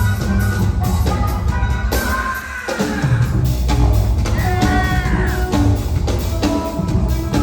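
Rock band playing live in an instrumental stretch between vocal lines: a steady drum-kit beat over a deep bass line. The bass drops out briefly about two seconds in, and a wavering high tone sounds near the middle.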